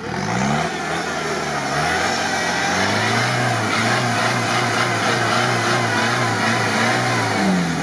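Modified UAZ 4x4 on oversized BTR tyres revving hard in deep mud while trying to reverse out. The engine climbs quickly at the start, then holds at high revs with a slight waver, and eases off near the end.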